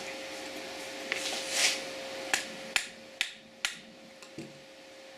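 Small metal parts of a just-removed lawn tractor carburetor being handled: about five sharp clicks and knocks over a couple of seconds, with a short hiss just before the second of them. A faint steady hum runs underneath.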